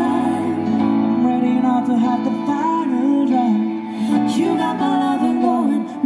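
Live music: a woman and a man singing together over an acoustic guitar.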